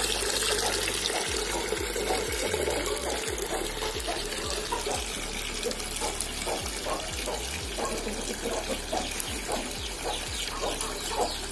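Steady stream of water pouring from a hydroponic return pipe into a bucket of water, splashing continuously. The water is being circulated by a submersible pump.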